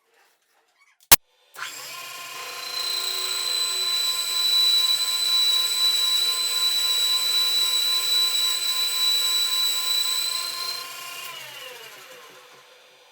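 A sharp click, then an old metal lathe's motor starting up and running steadily with a high whine. Near the end it cuts out and spins down, its pitch falling as it fades.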